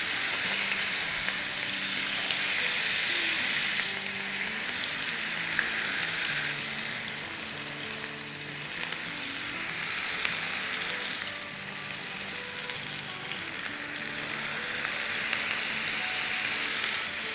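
Marinated chicken tikka pieces sizzling in hot oil in a frying pan as they are laid in one after another with tongs, the sizzle rising and falling as more pieces go in.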